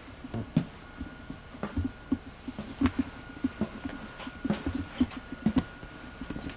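Irregular knocks and clicks, several a second, from a handheld camcorder being carried and jostled while walking across a wooden floor, with a faint steady high tone underneath.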